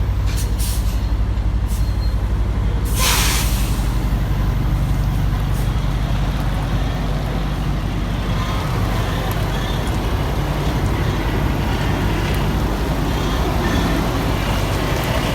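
Semi truck's diesel engine running steadily at low speed, with a short hiss of released air from the air brakes about three seconds in.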